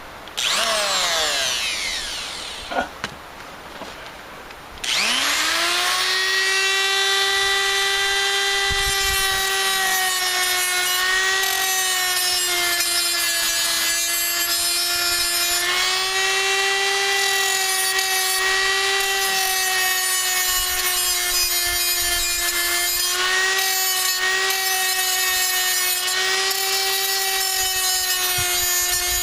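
Small 3-inch cut-off tool started briefly, coasting down, then started again about five seconds in. It spins up to a high, steady whine and grinds against the head of a steel rivet on a swing-set pipe, the pitch dipping slightly as it is pressed into the cut.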